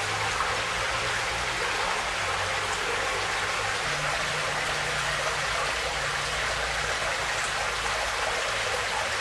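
Muddy floodwater rushing steadily, pouring in a torrent over the edge of a wall.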